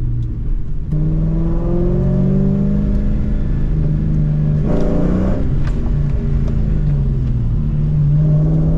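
2004 Ford Mustang GT's 4.6-litre V8, with an off-road X-pipe and Borla S-Type exhaust, revving up under hard acceleration in two pulls. The pitch breaks and drops briefly about five seconds in at a gear change, then falls back to steady running near the end.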